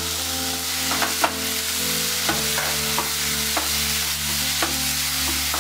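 Chopped onion, capsicum and freshly added tomato sizzling in a nonstick pan while a wooden spatula stirs them, knocking against the pan several times.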